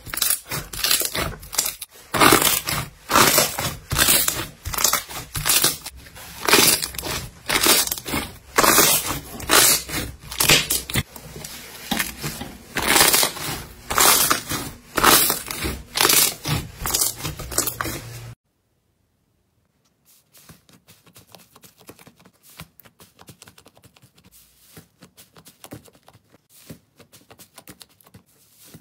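Hand squeezing and pressing a large sheet of blue slime: loud wet squelches in quick repeated bursts. About two-thirds of the way through it cuts off, and after a short silence come much fainter, rapid light crackles of fingers pressing slime in a small plastic tub.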